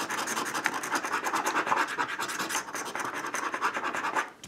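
A coin scratching the coating off a scratch-off lottery ticket: rapid back-and-forth rasping strokes, many a second, stopping just before the end.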